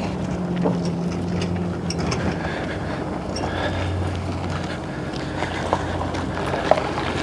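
A vehicle engine running with a steady low hum, over an even wash of outdoor noise.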